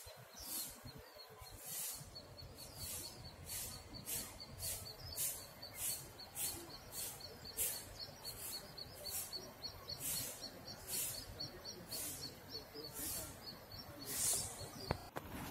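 Outdoor wildlife chirping: a fast, steady run of short high-pitched notes, with louder hissy high pulses about once a second over it, over faint background noise.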